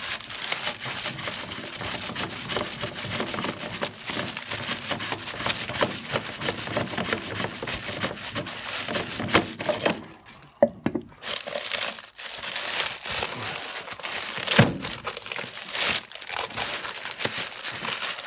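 Clear plastic packing wrap crinkling and rustling as it is handled and pulled off the parts, with a brief lull partway through and a few sharp knocks near the end.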